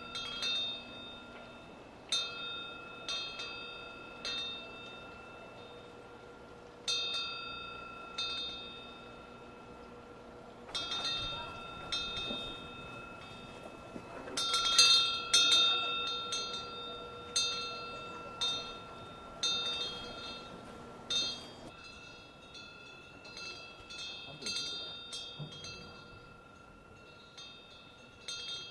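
Korean temple eaves wind bell (pungyeong) swung by the autumn wind, its clapper striking irregularly, every second or two and sometimes in quick clusters, each strike ringing on in a long, clear bell tone.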